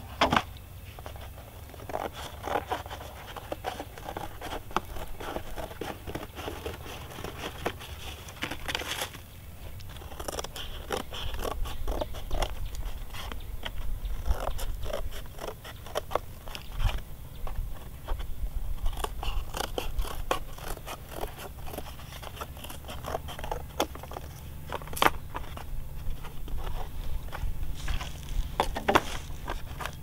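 Scissors cutting through cardboard: an irregular run of crunching snips and scraping, with sharper clicks now and then.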